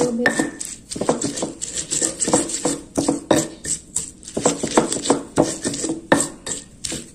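Stone pestle (ulekan) grinding raw chillies in a stone mortar (cobek): a run of irregular knocks and scrapes, about two or three strokes a second, as the sambal is ground.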